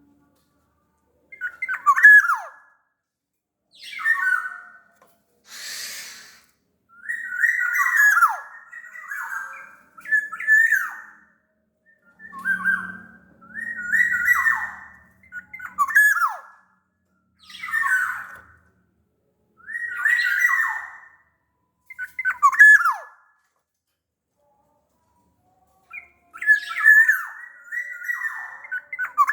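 Black-naped oriole (Sumbawa kepodang) singing: a string of short, loud, fluty whistled phrases with quick downward slurs, one every second or two. There is a single harsh, hissy note about six seconds in and a short pause near the end before the song resumes.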